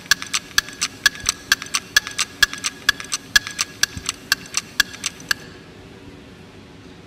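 Electronic countdown ticking from an audience-voting timer played over the hall's sound system, about four sharp ticks a second, each with a short high beep. It cuts off suddenly about five seconds in, as the voting time ends.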